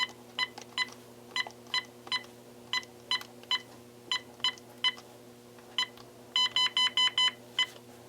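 Sony SPP-N1000 cordless phone handset beeping as its keypad buttons are pressed one after another, short beeps about two to three a second, then a quick run of about six near the end; every key now responds, showing the button repair worked. A steady low hum runs underneath.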